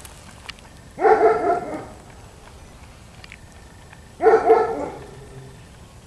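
A dog barking twice, about three seconds apart.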